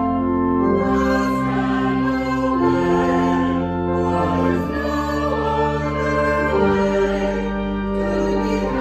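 Slow hymn music: sustained chords that change every second or two, with voices singing.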